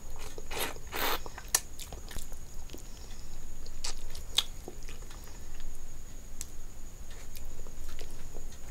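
Close-miked chewing of a mouthful of rice and fish curry eaten by hand, with wet lip smacks and mouth clicks at irregular intervals.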